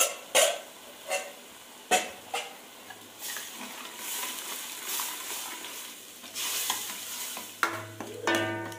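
A ladle stirring and scraping thick masala with freshly added gram flour in a stainless-steel kadai, the masala sizzling. The ladle clinks against the pan about five times in the first two and a half seconds, and there is a short ringing scrape near the end.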